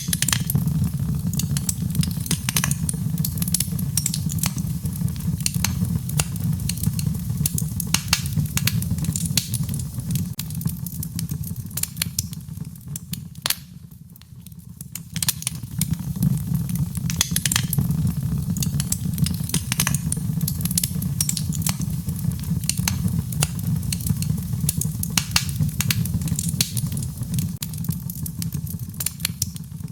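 Wood fire crackling in a fireplace: a steady low rumble of flames under frequent sharp pops and snaps, briefly quieter about halfway through.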